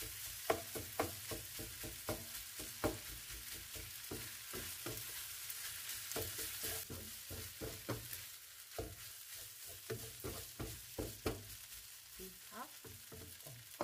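Kimchi fried rice sizzling in a stone-coated wok while a wooden spatula stirs and scrapes it, with frequent irregular knocks of the spatula against the pan.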